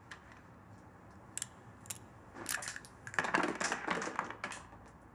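Handling noise from a small revolver: a couple of light clicks, then a spell of rustling, clattering movement as the gun is drawn and held up.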